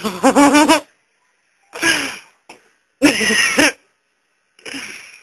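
People laughing in four short, loud bursts with wavering pitch.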